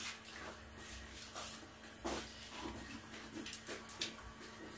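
Faint eating and table-handling noises: scattered small clicks, smacks and light knocks at uneven intervals, among them a plastic water pitcher being picked up from the table near the end.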